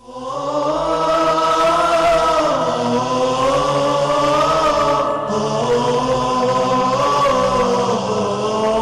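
Choir-like vocal chanting: several voices holding long, slowly gliding notes over a steady low drone, fading in at the start.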